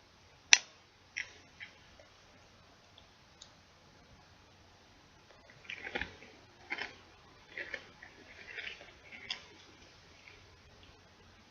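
Close-miked crunching and crinkling of chips and their bag: one sharp snap about half a second in, a couple of lighter clicks, then a run of scattered crackles in the second half.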